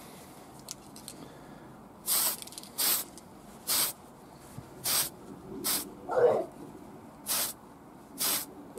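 Tamiya TS-11 Maroon aerosol spray can hissing in about seven short bursts as a model fuel tank is sprayed in quick passes. One louder, lower-pitched burst comes about six seconds in.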